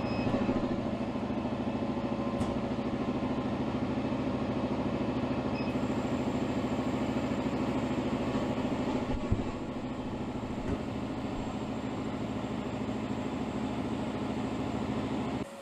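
CO2 laser cutter running as it cuts a sheet of MDF: a steady mechanical whir from the machine, easing slightly about nine and a half seconds in.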